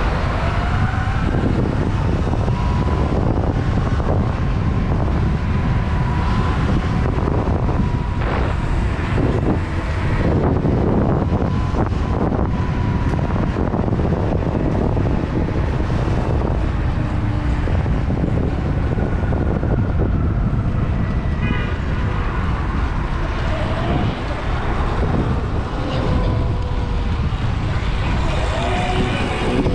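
Wind buffeting a helmet-mounted microphone during a ride on a Sur Ron Light Bee X electric dirt bike, a steady loud rumble, with a thin whine from the electric motor rising and falling with speed.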